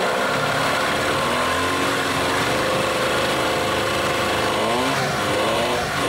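Evinrude 15 hp two-cylinder two-stroke outboard running in a test tank, its engine speed rising and falling, with the propeller churning the tank water.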